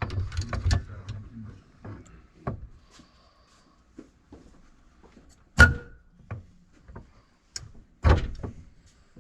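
Scattered knocks and clunks of metal tools and parts being handled at a workbench, with two sharp, loud knocks, one about five and a half seconds in and one about eight seconds in.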